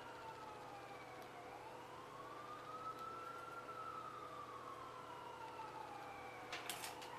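Emergency vehicle siren wailing faintly, its pitch rising and falling slowly over several seconds, with a few sharp clicks near the end.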